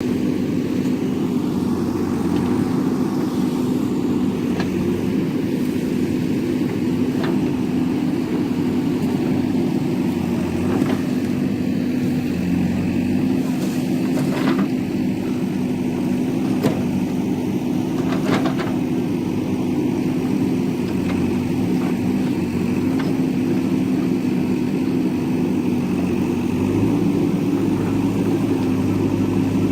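JCB backhoe loader's diesel engine running steadily, with a few brief knocks over it. The engine note steps up slightly near the end.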